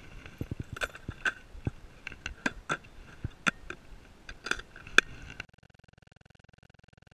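Irregular sharp clicks and taps of hands handling small plastic fishing gear beside an open tackle box, about a dozen in five seconds. Then the sound drops to near silence.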